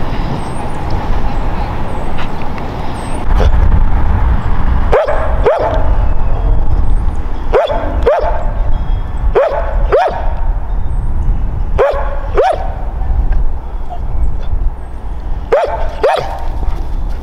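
Yellow Labrador retriever barking in double barks, woof-woof, five times over, starting about five seconds in.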